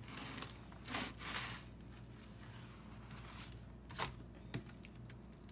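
Raw pork loin being turned over by hand on a metal sheet pan lined with paper towel: a few faint rubbing and rustling noises, the longest about a second in and a short one about four seconds in.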